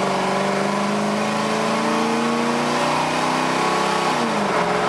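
A motor-vehicle engine accelerating, its pitch climbing slowly, then dropping and climbing again about four seconds in.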